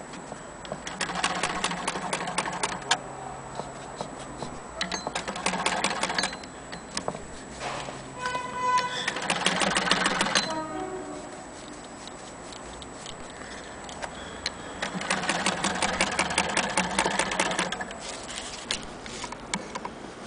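Singer 99K hand-crank sewing machine running in four short bursts of rapid, even clatter as the crank is turned, stitching through denim, with quieter pauses between the bursts.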